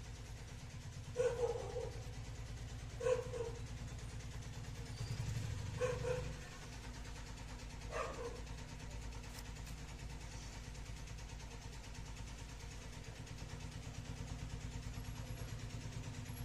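A dog barking four times, single short barks about two seconds apart, over a steady low hum.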